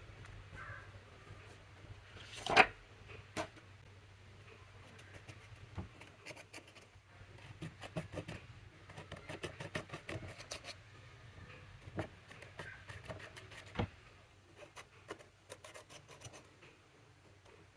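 Slime being worked by hand with makeup mixed in: soft sticky clicks and crackles, with a sharper loud click about two and a half seconds in and another late on, over a faint low hum.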